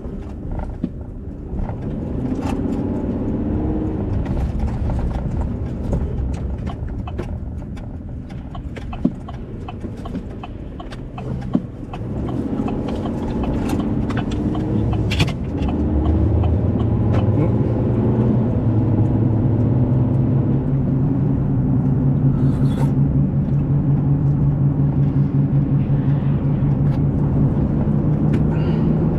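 Vehicle engine heard from inside the cab, speeding up in a couple of rising pulls, then holding a steady drone at cruising speed, with scattered clicks and knocks.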